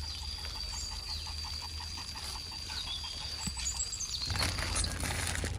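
A dog lapping water from a tap's stream in quick, even laps, about five a second, which stop about four seconds in. A steady high thin tone and a few faint bird chirps sound behind it.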